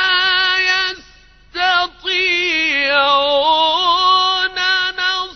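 A male reciter chanting the Qur'an in melodic tajwid style, in a high, ornamented voice. It slides up into a long held note, pauses twice for breath about one and two seconds in, then carries on in wavering melismatic turns.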